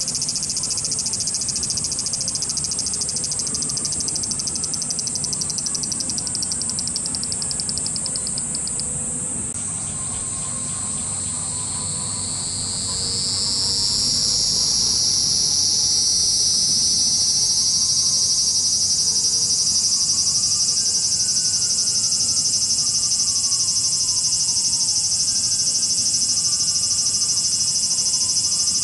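Cicadas singing: a high, rapidly pulsing buzz that slides lower and stops about nine seconds in, then a louder, steady buzz that rises in pitch and swells from about thirteen seconds on.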